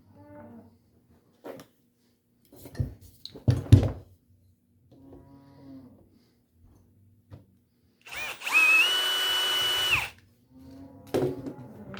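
Large corded electric drill handled with a few knocks, then triggered on: the motor whines up to speed, runs steadily for about two seconds, and cuts off.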